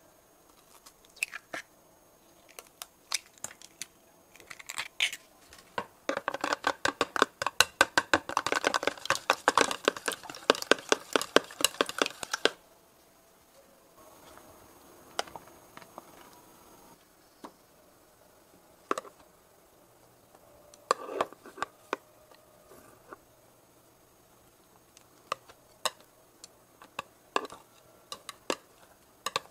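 Close-up kitchen prep sounds. First scattered taps and clicks as eggs are handled in a plastic container, then about six seconds of fast, steady clicking as the eggs are beaten. After that comes a soft rustle of a knife and foil wrapper as butter is cut, and scattered taps of chopsticks moving bread slices in the egg.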